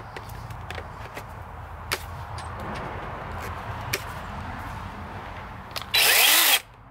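Skil PWR CORE 20-volt brushless chainsaw briefly triggered about six seconds in: a short, loud whir of about half a second that starts and stops abruptly. A few sharp handling clicks come before it.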